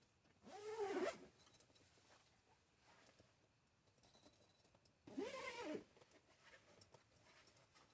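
A zipper pulled twice, each a quick zip of about half a second, the first about a second in and the second about five seconds in.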